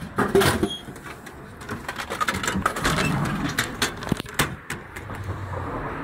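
Crepe vending machine being worked and a plastic crepe case taken out of its pickup slot: a string of clicks, knocks and plastic rattles, loudest just after the start, with a sharp click about four and a half seconds in.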